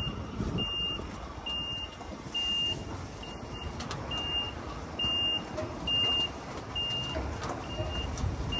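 Heavy-haulage truck's reversing alarm: a high single-tone beep repeating a little more than once a second, over the low rumble of a diesel engine.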